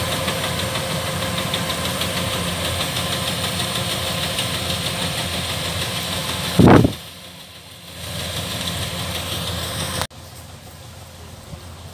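Kubota DC-105X combine harvester running steadily as it cuts and threshes rice. About two-thirds of the way through there is a brief, very loud burst on the microphone, and the machine sounds quieter for about a second afterwards. Near the end the sound drops abruptly to a fainter, more distant level.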